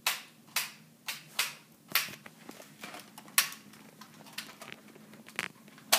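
Nerf blaster's plastic mechanism clicking sharply about eight times at uneven intervals as it is cocked and fired.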